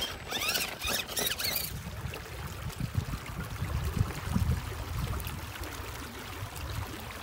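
Electric drive motor of a Redcat Everest 10 RC rock crawler whining in several quick rising and falling glides as it is throttled up and down on the climb, over the first second and a half. After that come an irregular low rumble and the faint rush of a shallow creek flowing.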